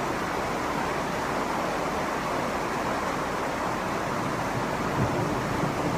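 Steady, even hiss of heavy rain.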